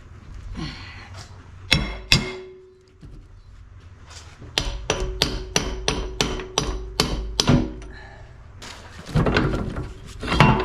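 Hammer striking metal: two blows, then a quick run of about ten blows, about three a second, each leaving a brief metallic ring, then a few more near the end.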